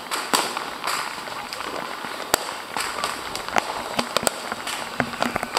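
Fireworks going off: sharp bangs and cracks at irregular intervals, over a steady hiss. The bangs come closer together in the second half.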